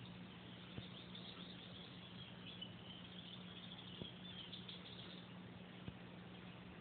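Quiet room with a low steady hum, and a few faint clicks as a cat gnaws at the corner of a pillow.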